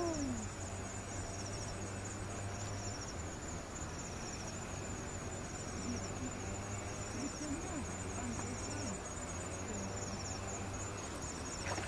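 Insects chirping in rapid, high-pitched pulsed trills that repeat in short bursts, over a low steady hum.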